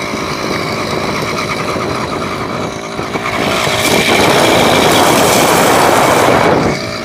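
Small motor running while riding, overlaid about halfway through by a loud rush of wind and handling noise on the phone's microphone that stops near the end.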